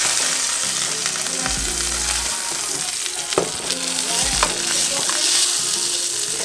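Steak sizzling loudly as it fries in a pan, with metal tongs tapping against the pan a couple of times as the meat is turned.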